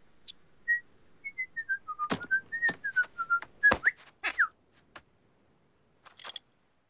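Someone whistling a short, wandering tune of a dozen or so quick notes, with a few sharp knocks between them. Near the end come a quick upward and a downward pitch slide, then a brief high hiss.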